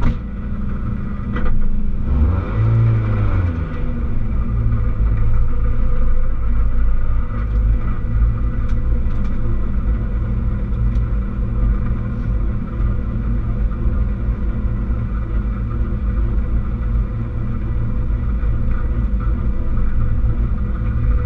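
Rally car's engine heard from inside the cabin, running at low revs as the car rolls slowly, with one quick rev that rises and falls about two to three seconds in.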